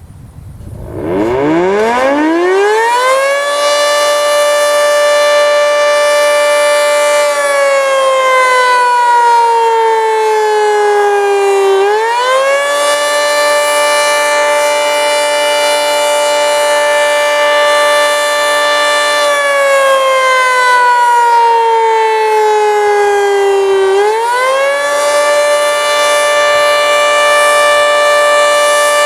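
Federal Signal 3T22 three-tone outdoor warning siren starting up about a second in and winding up to full pitch, then sounding the attack signal: the chord holds for several seconds, slowly falls, then climbs quickly back up, twice.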